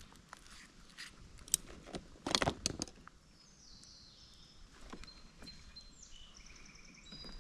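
Faint outdoor birdsong: thin high whistled and trilled notes from about halfway through. Before that come scattered light clicks and rustles, with a short louder scuffle about two and a half seconds in.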